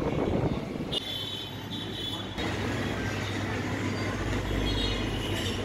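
Low background ambience: faint general noise with a steady low hum, without speech, changing abruptly about a second in and again a little later as the scene shifts from the street to indoors.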